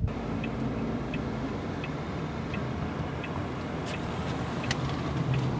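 A car's turn-signal indicator ticking evenly, about two ticks a second, over steady engine and road noise. A couple of sharper clicks come about four seconds in.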